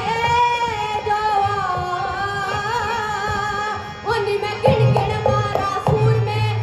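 A woman singing a Punjabi folk song, holding long wavering notes for about the first four seconds. Then a stepping instrumental melody and low dholak drum strokes come in.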